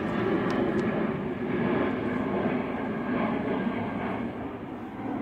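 Airplane passing overhead: a steady engine drone, a little quieter near the end.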